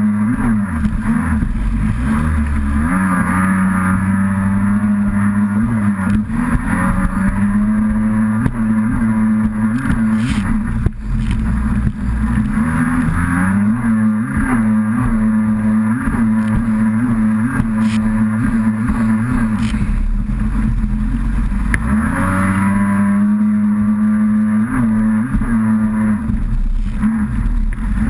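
Kawasaki SX-R 800 stand-up jet ski's two-stroke twin engine running hard and steady, its pitch dipping briefly and climbing back several times as the throttle is eased and reopened.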